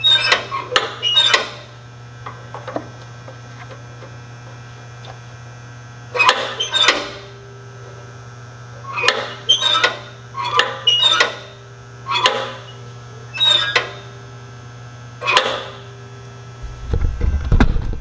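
Clusters of sharp metallic clicks and rattles, about seven times, from metal parts of a Troybilt Tuffy tiller's belt and clutch area being handled by hand, over a steady low hum.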